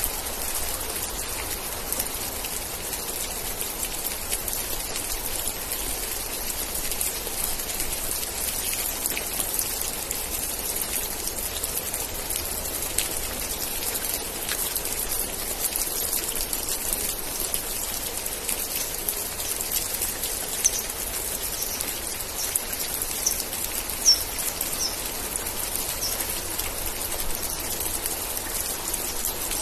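Steady rain falling, with many individual drops pattering close by. A run of about eight short high chirps comes in about two-thirds of the way through.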